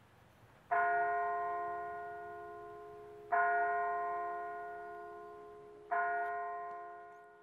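A bell struck three times at the same pitch, about two and a half seconds apart, each stroke ringing on and slowly dying away; the third stroke fades out near the end.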